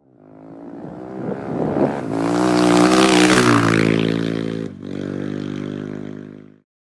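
Motorcycle engine sound effect, revving and building in loudness over about three seconds, then a sudden break just under five seconds in, after which it holds at a steady pitch and fades out.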